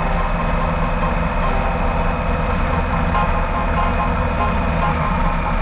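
Motorcycle cruising at steady highway speed: the engine runs evenly under wind noise on the fairing-mounted camera.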